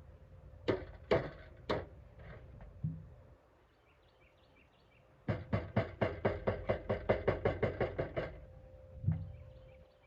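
Sheet-metal toolbox lid being struck while it is straightened: a few separate knocks in the first two seconds, then about halfway through a fast run of light metallic strikes, about seven a second for some three seconds, with the steel ringing faintly.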